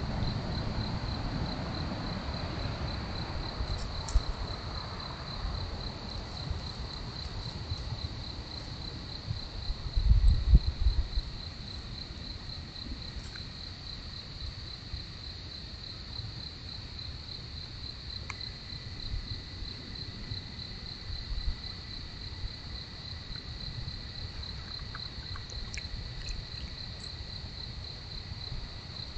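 Crickets chirping in a steady, fast-pulsing high trill, with a second, fainter steady trill coming in about two-thirds of the way through. About ten seconds in, a brief loud burst of low thumps.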